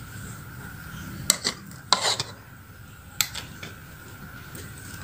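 Plastic rice paddle stirring cooked yellow rice in a rice cooker's inner pot, knocking and scraping against the metal pot a few times, with a short scrape about two seconds in.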